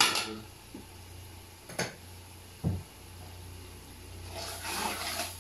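Tomato-onion masala cooking in an aluminium pot over a steady low hum. A sharp click comes a little under two seconds in and a dull thump soon after, then a rising rustling, scraping noise builds near the end.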